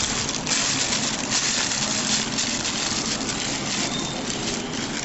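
A running machine's steady rushing noise with a low hum underneath.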